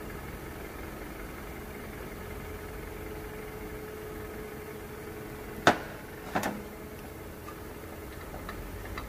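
Steady background hum of workshop machinery, with two sharp clicks a little under a second apart past the middle, from small engine parts or a hand tool being handled during reassembly.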